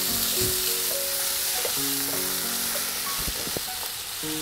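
Sliced onions sizzling in hot oil in a non-stick frying pan as they brown, stirred with a wooden spatula that knocks against the pan a few times. Background music plays held notes underneath.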